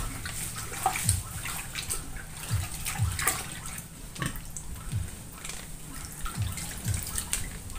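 Water being swished and stirred by hand in a plastic bucket, with irregular sloshes, as disinfectant powder is mixed into it.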